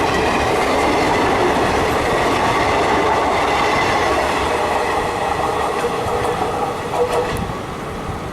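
Indian Railways passenger coaches running at speed: a steady wheel-on-rail rumble and clickety-clack with a thin steady whine, easing off a little from about six seconds in.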